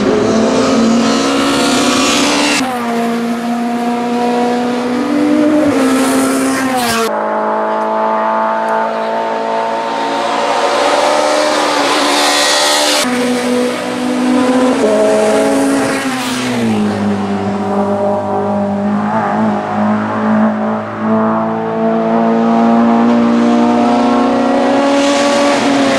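Peugeot 207 S2000 rally car's four-cylinder engine running hard, its pitch stepping up and down with gear changes and throttle. It is heard in several short passes, with abrupt jumps in sound between them.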